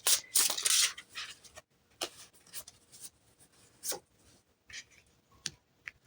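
Tarot cards being handled and laid down: a rustle of cards sliding over the first second and a half, then several separate soft snaps and taps as cards are flipped and placed.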